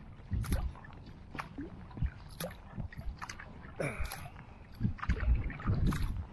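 Kayak paddle strokes in calm water: the blades dip and splash with drips about once a second, alternating sides, with water gurgling along the hull. Low rumbling bursts come and go underneath, the loudest a little past the middle.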